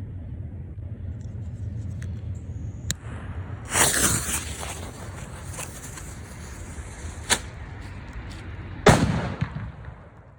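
Firecrackers going off: a faint pop about three seconds in, a louder bang with crackling about a second later, a sharp crack past seven seconds, and the loudest bang near the end, over a steady low rumble.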